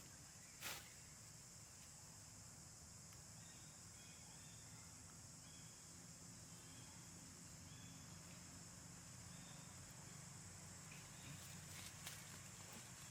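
Near silence: faint outdoor ambience with a steady high insect buzz, a sharp click just under a second in and another near the end.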